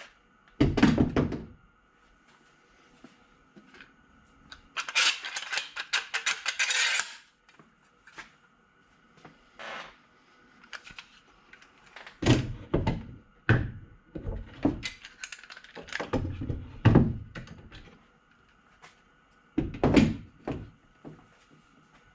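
Clamps knocking and clattering as they are handled: a heavy thunk about a second in, a rattling clatter a few seconds later, then a run of separate thunks.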